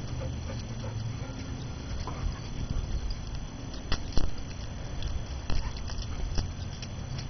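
Doberman's claws clicking a few scattered times on a concrete patio as he walks and sniffs, over a steady low rumble.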